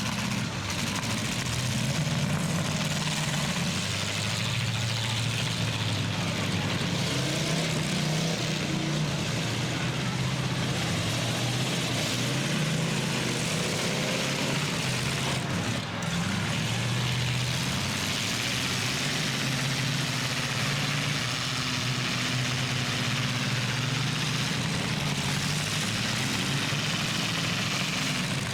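Engines of several demolition-derby trucks running together and revving up and down at a steady overall level.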